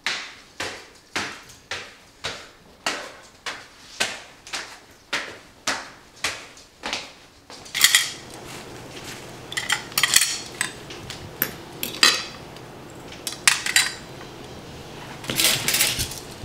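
Footsteps on hard stairs, a sharp knock about twice a second. About halfway through they give way to scattered clinks of cutlery on plates and dishes being set down.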